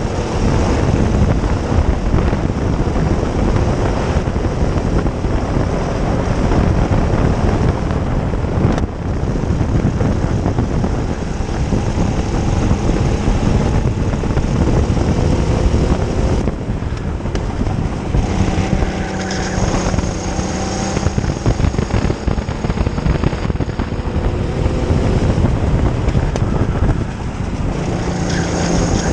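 Racing kart's engine running hard under the driver, its pitch climbing slowly and dropping back several times, with heavy wind buffeting on the microphone.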